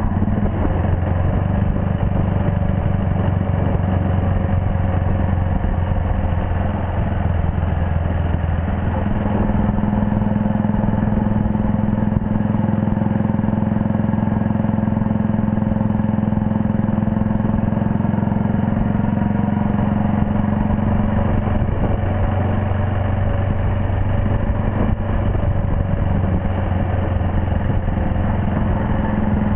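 1939 Red Panther Model 40 motorcycle's 250 cc single-cylinder engine running under way, heard from on the bike. The engine note rises about nine seconds in and drops back around twenty seconds in.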